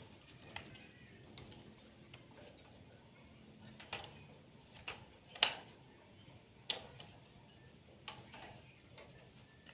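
Irregular light clicks and taps, a few sharper than the rest, from a round bird cage being handled and set back onto its base tray after cleaning.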